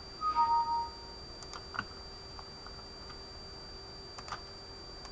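A short two-note computer alert chime, a higher tone then a lower one, followed by a few mouse clicks over a faint steady hum.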